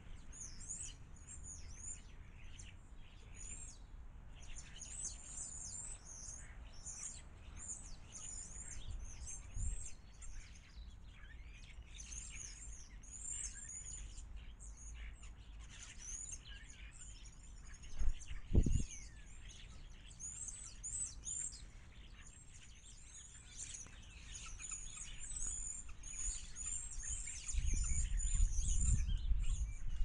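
Small songbirds chirping and twittering in quick, high, overlapping calls, with two dull thumps a little past halfway and a low rumble near the end.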